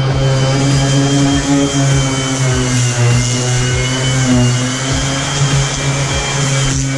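Random orbital sander running steadily against a bathtub's surface, scuffing it for reglazing.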